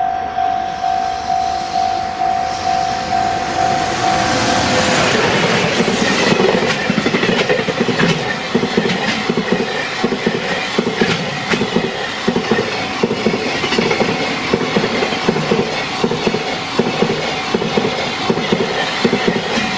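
Japanese level-crossing warning bell dinging a little under twice a second. About five seconds in, a freight train rushes over the crossing, and its wagon wheels clatter rhythmically over the rail joints as it passes, with the bell still ringing faintly underneath.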